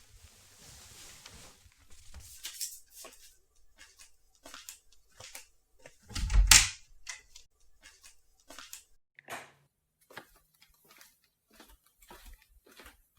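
Scattered small clicks and knocks, with one loud thump a little past halfway.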